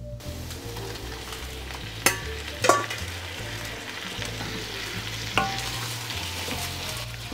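Tortelloni and gnocchi sizzling in a frying pan of pesto, stirred with a wooden spoon, a steady hiss throughout. Sharp knocks of the spoon or pasta against the pan come twice about two seconds in and once more around five seconds.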